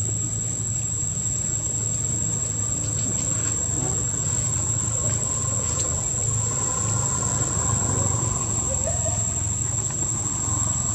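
A steady, high-pitched insect drone over a low, steady rumble, with a few faint short chirps near the end.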